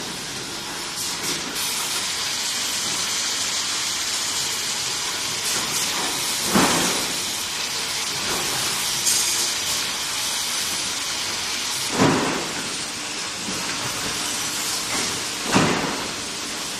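Metalworking factory floor noise: a steady machine hiss with a few sharp, loud metallic clanks.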